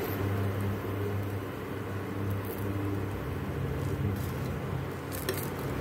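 Steady electrical hum and fan whir of an induction cooktop running under a frying pan. A few faint clicks of a spatula against the pan come near the end.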